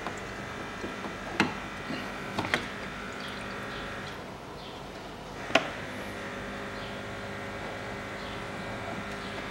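A few short, light clicks and knocks as the old fuel filter and its housing lid from a 3.0 diesel Audi Q7 are handled, the sharpest about five and a half seconds in, over a steady background hum.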